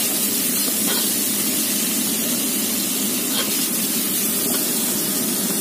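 Hot cooking oil sizzling steadily in a wok as chillies and shallots fry, with a couple of faint clicks.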